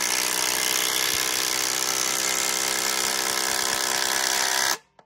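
Ryobi P238 brushless impact driver on speed three hammering a large lag bolt into a 4x6 wooden beam, running steadily and then cutting off suddenly near the end as the bolt is driven home. It drives the bolt without struggling.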